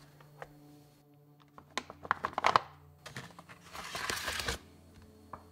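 Clear plastic packaging bag crinkling as an RC truck bumper is handled and pulled out of it. There is a burst of sharp crackles about two seconds in, then about a second of steady rustling near the four-second mark. Soft background music plays underneath.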